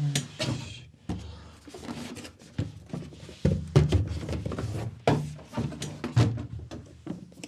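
Cardboard packaging being handled: irregular knocks, thumps and scraping as a boxed accessory is lifted out of a larger cardboard box and set down.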